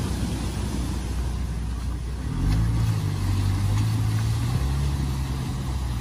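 Car engine held at steady revs while driving through deep flood water, coming in strongly about two seconds in, over the rush and splash of water thrown up around the car.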